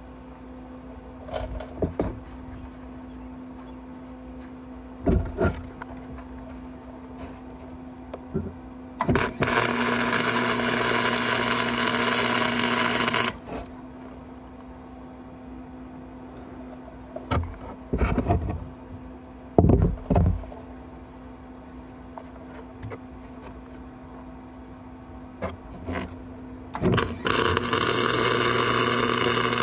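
Arc welding: a steady hiss of about four seconds beginning about nine seconds in, and another starting near the end. A constant hum from the welding machine runs between the welds, with scattered short clicks and knocks.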